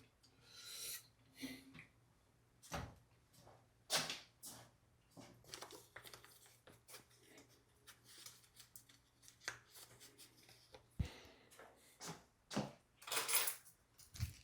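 Scattered small clicks, knocks and rustles of household objects being handled in a small room, with a louder rustling stretch near the end.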